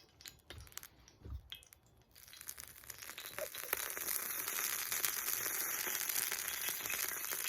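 Oil and liquid margarine sizzling and crackling in a hot discada, starting about two seconds in and building to a steady sizzle as the pan comes up to heat.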